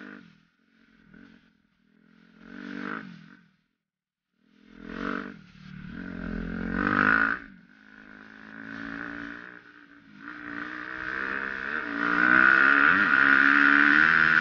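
Suzuki RM-Z250 four-stroke single-cylinder dirt bike engine, heard from the rider's helmet: short bursts of throttle with near-quiet gaps at first, then revving up and down. From about two-thirds of the way in it runs loud and steady at high revs, with a rushing noise on top.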